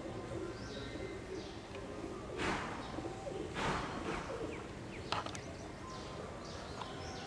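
Birds chirping faintly over a low steady background, with two brief rushing noises around the middle and a few faint clicks after them.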